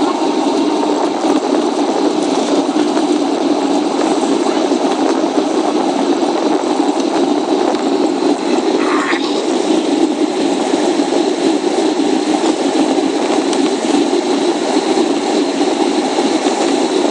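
Steady cabin noise of a Boeing 757 jet airliner in flight: engine drone and airflow heard from inside the passenger cabin, a deep, even rumble with faint steady tones above it.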